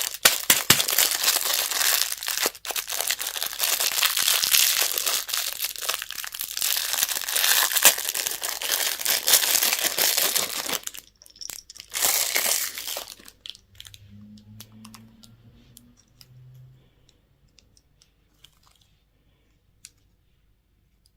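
Candy wrapper crinkling and tearing as it is unwrapped, continuous for about eleven seconds, with another short burst soon after. After that come faint scattered clicks and taps that fade almost to quiet.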